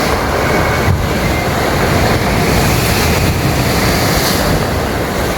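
Waves washing over a stony beach, the loose stones rumbling as the water pushes them up the shore and drags them back. A loud, steady wash of surf.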